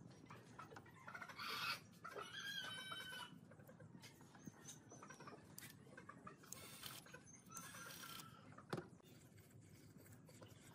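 Chickens in the background, clucking, with a faint rooster crow about two seconds in and another call around eight seconds. A single sharp knock comes shortly after.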